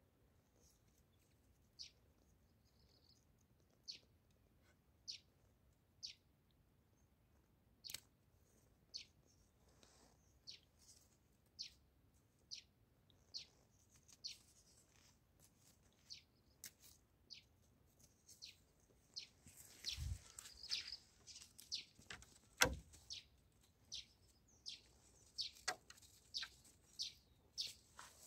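A bird chirping over and over, short high chirps about once a second. Two dull thumps come about two-thirds of the way through.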